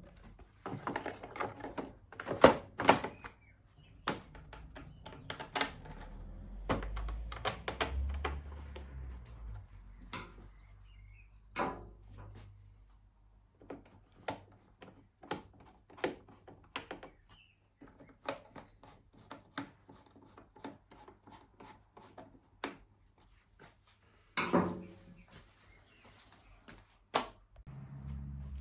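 Scattered knocks, clicks and rubbing as lawn mower parts and tools are handled at a workbench, with a low rumble from about six to nine seconds in.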